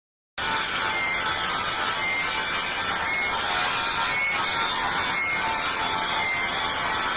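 Steady static-like hiss from a mock emergency-alert broadcast, starting suddenly after a moment of silence, with faint short high beeps about once a second.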